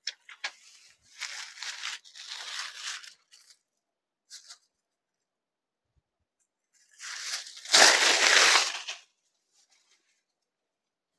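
Rustling and crinkling of a folded saree and its paper packing sheet as they are handled and unfolded, in a few short bursts, then a louder, longer swish of cloth about seven to nine seconds in as the saree is shaken open and held up.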